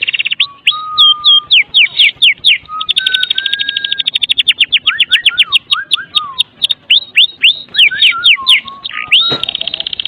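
White-rumped shama (murai batu) singing a fast 'kretekan' song: long, very rapid rattling trills alternating with sharp down-slurred notes and lower, held whistles. A single sharp click comes about nine seconds in.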